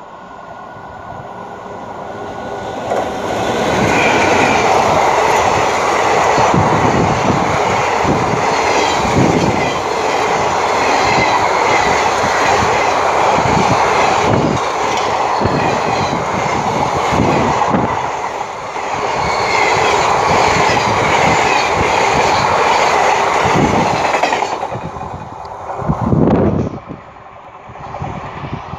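Express passenger train passing at full speed: the sound builds as it approaches, then holds a steady rush of steel wheels on rail with repeated clickety-clack over the rail joints. It cuts off sharply as the last coach goes by, near the end.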